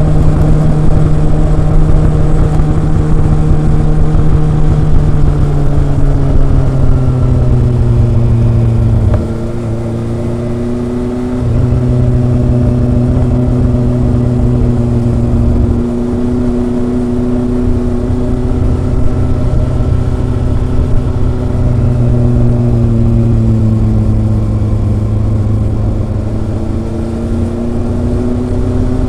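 Kawasaki ZRX four-cylinder exhaust while riding, running steadily. The engine note eases down and goes quieter as the throttle closes about nine seconds in, picks up again about two seconds later, then falls and rises once more near the end.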